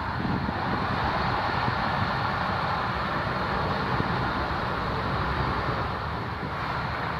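Steady jet noise from a Dassault Falcon 7X's three turbofan engines as the business jet rolls out on the runway just after landing, with a low rumble underneath.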